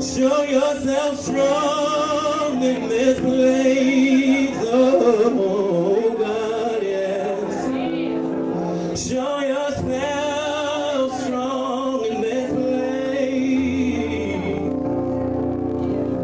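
Gospel praise and worship: a voice sings with strong vibrato over sustained keyboard chords, breaking off briefly a few times.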